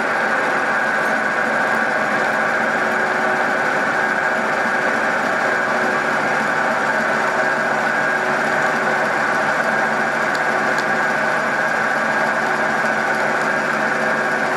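Milling machine running with a large end mill cutting into a steel brake caliper mount: a steady, even machine whine with several tones over the grinding of the cut.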